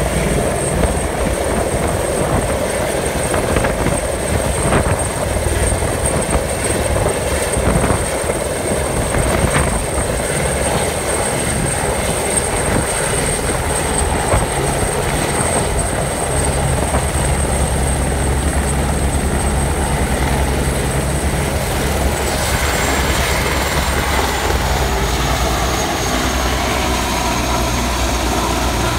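Eurocopter Écureuil helicopter hovering low and descending to land, its rotor beat running steadily under a high turbine whine. About three-quarters of the way through, the whine steps down in pitch as the engine eases off.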